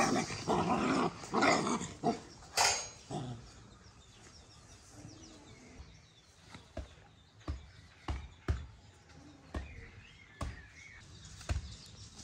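Two dogs play-fighting, growling and barking in loud rough bursts for about the first three seconds. Then a soccer ball is volleyed back and forth by hand, with sharp, short hits roughly once a second.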